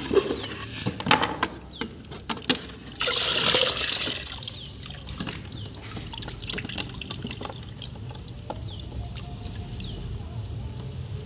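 Shallow water splashing and trickling, with a loud gush about three seconds in and a few sharp knocks in the first three seconds.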